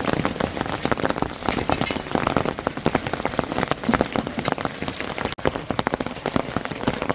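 Hail and rain pelting down: a dense, continuous patter of many small hard impacts.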